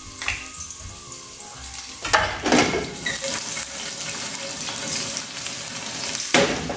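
Garlic cloves frying in olive oil in a stainless steel sauté pan, a sizzle that gets louder about two seconds in as the pan is tilted and swirled over the gas flame.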